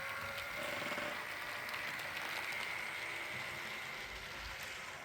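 Rivarossi Southern Pacific cab-forward model locomotive running at speed around the track: a steady motor and gear whine with the clatter of its wheels on the rails.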